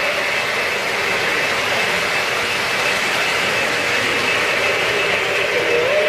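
Three-rail O-gauge model trains running: a steady mechanical rumble of motors and wheels on the track. Just before the end, the approaching model steam locomotive's whistle starts, one steady tone.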